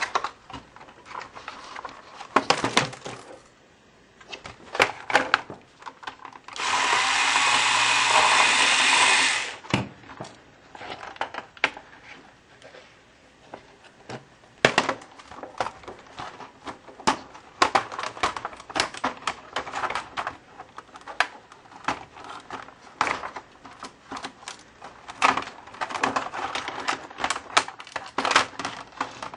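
Laptop parts being handled and pried apart by hand: a stream of plastic and metal clicks, taps and knocks. About seven seconds in, a loud steady noise runs for about three seconds.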